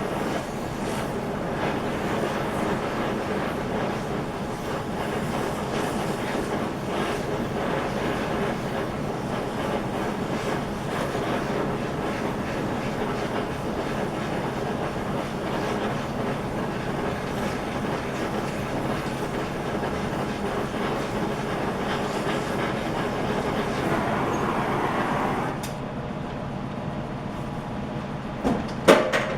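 Gas torch flame running steadily as it burns the zinc galvanizing off a steel part. It cuts off about 25 seconds in, followed by a few sharp metal clinks near the end.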